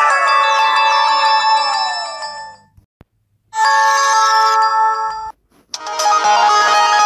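Samsung phone ringtones and jingles played one after another: a synthesized tune full of falling, sweeping notes that stops about two and a half seconds in, then after a short gap a brief bright chime of held notes, and near the end another electronic melody begins.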